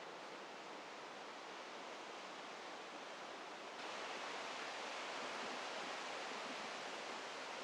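Steady rushing outdoor ambience of the woods, with no distinct events; it gets a little louder about four seconds in.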